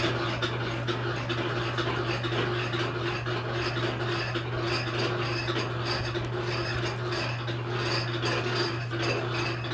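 Uncapping plane scraping the wax cappings off a filled honeycomb frame: a continuous rasping scrape with small ticks, over a steady low hum.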